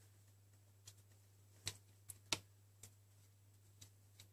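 A few faint, sharp clicks and taps of a RAM module being worked out of a MacBook Pro's memory slot as its retaining clips are pulled aside. The sharpest click comes a little past halfway, over a faint low hum.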